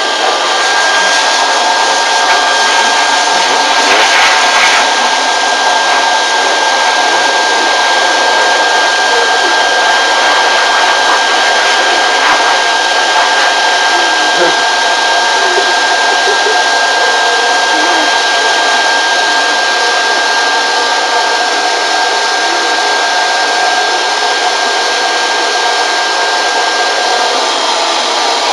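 Electric blow dryer running steadily, an even rush of air with a thin high whine held throughout.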